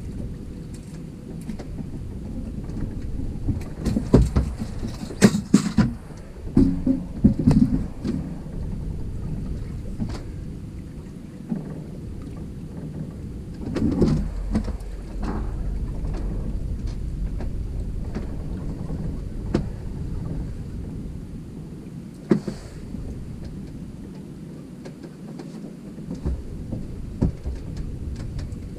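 Low, steady rumble of wind and fast river current against an anchored fishing boat, broken by several knocks and clunks of rods and gear being handled on the deck, most of them between about 4 and 8 seconds in, with another bunch around 14 seconds and a single sharp knock a little past 22 seconds.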